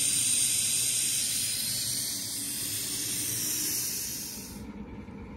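Steam hissing steadily from a 5-inch gauge live-steam 0-6-0 locomotive, cutting off abruptly about four and a half seconds in.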